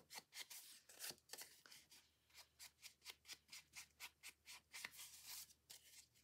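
Foam ink blending tool rubbed in quick, faint strokes, several a second, against an ink pad and along the edges of a paper pocket, distressing the edges with ink.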